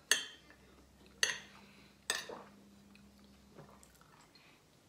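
Metal cutlery clinking against a ceramic dinner plate while eating: three sharp clinks about a second apart, each with a short ring.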